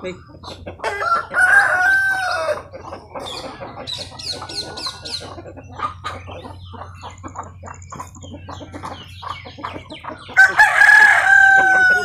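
A rooster crows twice, once about a second in and again near the end, each a long call that falls slightly in pitch. Between the crows comes a run of short, light taps from a carved wooden tool worked against a clay pot.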